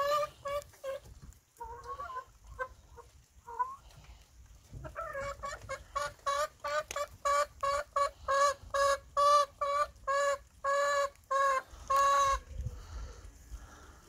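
Domestic hen clucking: a few scattered clucks, then from about five seconds in a fast, even run of loud calls, two to three a second, ending with a longer call near the end.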